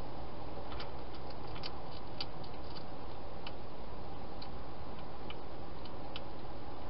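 Wild hedgehog eating at a food dish: a dozen or so irregular, sharp crunching clicks over a steady hiss.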